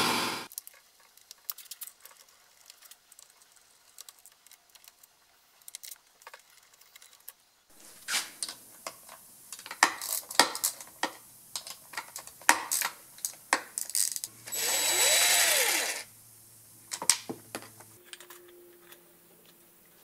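Plastic clicks and knocks as a Poulan Pro chainsaw's top cover is unfastened and lifted off. Past the middle, a cordless drill runs once for about a second and a half, its pitch rising then falling, as it drives out a cover screw.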